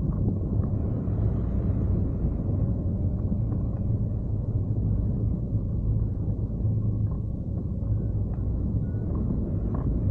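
Steady low rumble of wind rushing over the microphone in flight on a hang glider, with a few faint ticks.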